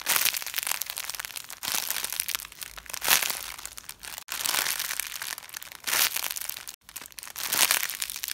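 Clear plastic bags around foam toast squishies crinkling as they are squeezed and handled, in several bursts with two short breaks.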